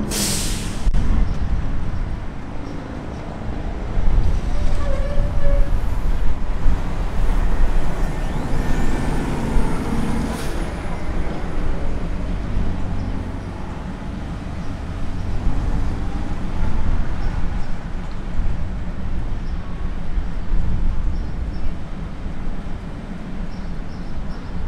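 A Pullman-Standard "Wartime" PCC streetcar rolling slowly around a curved loop track at a distance, under an uneven low rumble.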